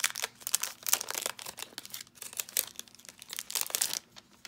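Plastic packaging of a new pack of foam adhesive dimensionals crinkling and rustling as it is opened and handled, stopping about four seconds in.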